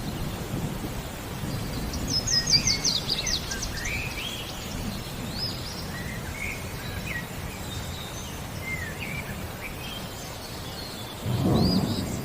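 Rain and a steady low thunder rumble, with songbirds chirping over it and a quick run of high, falling notes about two seconds in. A louder roll of thunder swells near the end.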